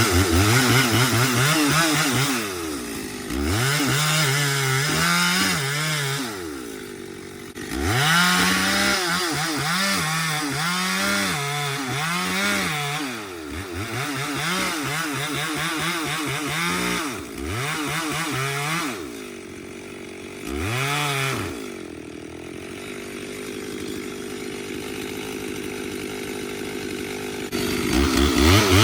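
Two-stroke chainsaw revving up and down over and over as it cuts into a tree. It settles to a steady idle for several seconds near the end, then revs up again.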